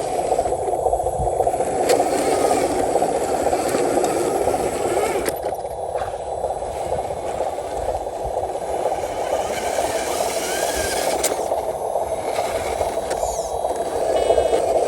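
Radio-controlled model trucks' small electric motors and gearboxes running steadily, with scraping and rattling.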